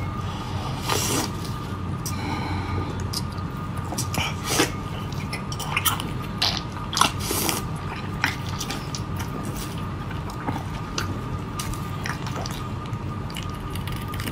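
Wet eating sounds from octopus tentacles in chili oil being bitten, sucked and chewed: irregular sticky clicks, smacks and slurps. They sound over a steady background hum.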